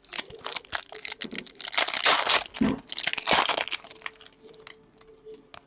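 Crinkling and tearing of a foil trading-card pack wrapper as cards are handled, a run of crackles that is loudest about two seconds in and again about three and a half seconds in.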